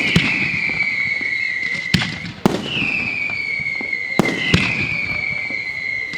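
Fireworks firing in daylight: sharp launch shots every second or two, several followed by a loud whistle that falls slowly in pitch over about two seconds. The whistles overlap, so one is always sounding.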